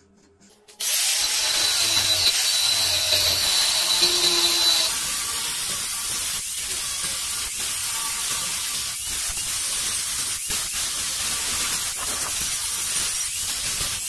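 Angle grinder with a thin cut-off disc cutting into a steel rod clamped in a vise, starting suddenly about a second in. A steady high motor whine at first gives way, a few seconds in, to a rougher grinding noise that dips briefly several times as the disc bites and eases.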